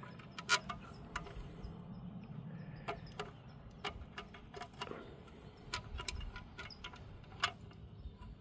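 Irregular light metallic clicks and clinks, about a dozen, loudest about half a second in and near the end, as bolts are started by hand into the Humvee's water pump backing plate while its holes are lined up.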